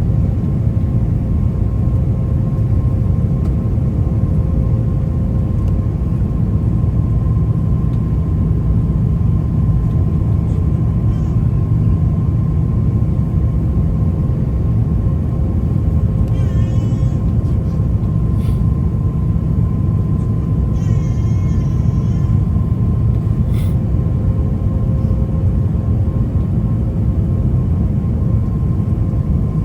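Steady in-flight cabin rumble of an Airbus A350-900 with Rolls-Royce Trent XWB engines, heard from a passenger seat during the descent, with a constant hum tone over it. A little past halfway, two brief high wavering sounds and a few short clicks rise above the rumble.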